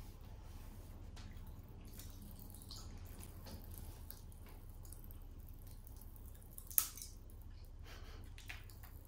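Popping candy crackling in open mouths: scattered faint crackles and pops, with one louder pop about seven seconds in.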